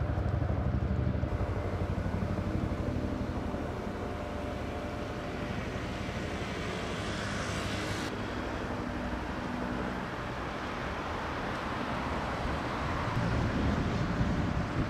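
Steady low mechanical rumble of distant engines, mixed with broad outdoor noise.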